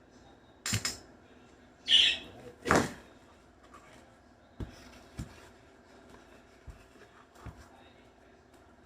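Three short knocks or scrapes close together in the first three seconds, followed by four lighter clicks spread out over the rest: handling noises from working with wood pieces.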